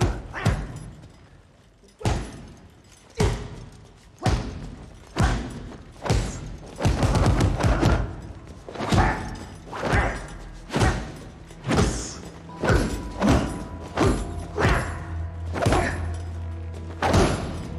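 Gloved punches landing on a heavy punching bag: a run of heavy thuds, about one a second and coming quicker later, each with a short echo, over film score music whose low drone builds in the second half.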